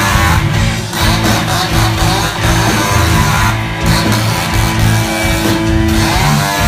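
Live rock band playing loudly, electric guitar over bass and drums.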